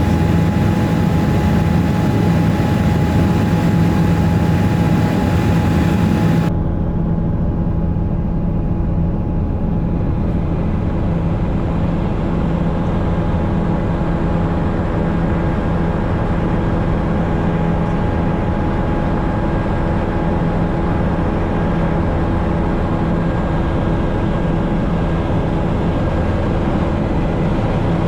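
Helicopter in flight: engine and rotor running steadily, a low rumble with a steady whine over it. About six seconds in, the high hiss drops away abruptly while the rest runs on unchanged.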